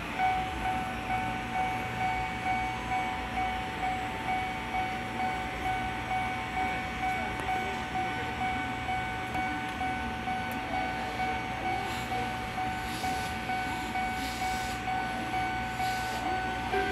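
Railway level-crossing warning bell ringing in an even rhythm, about one and a half strokes a second, over a steady ringing tone.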